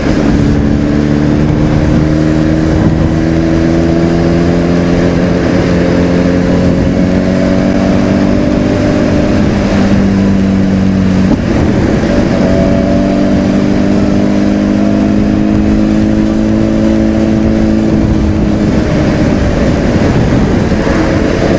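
Sport motorcycle engine cruising at a steady town speed, its note holding nearly level with a slow drift in pitch and a brief dip about eleven seconds in. Wind rushes over the microphone throughout.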